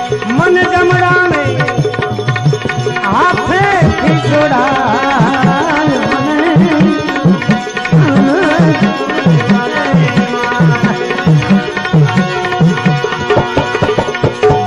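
Gujarati bhajan music: hand drums beat a steady, quick rhythm under sustained held notes. From about three seconds in, a wavering melody slides up and down in pitch.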